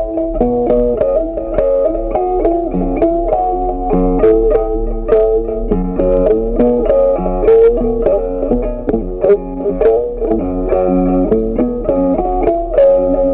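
Background music led by a plucked guitar, playing a busy run of notes over a bass line.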